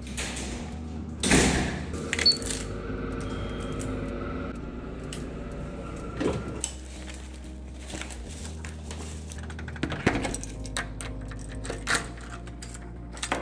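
Elevator trip: clicks and a rush of noise as the elevator doors move, then a steady hum with faint tones while the car runs. A few sharp clicks and jingling keys at a door lock come near the end.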